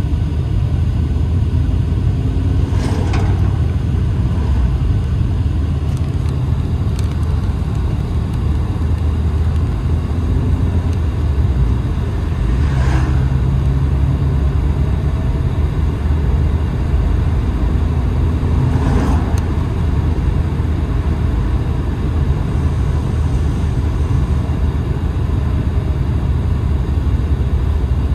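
Car driving at road speed, heard from inside the cabin: a steady low rumble of engine and tyres. A brief louder noise cuts through three times.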